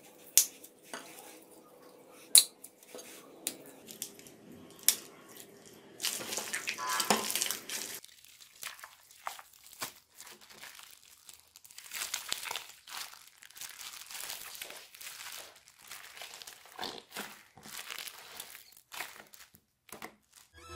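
Plastic bags crinkling and slime squishing as hands squeeze slime packed in clear plastic bags, with three sharp snaps in the first five seconds and a louder stretch of crinkling about six seconds in.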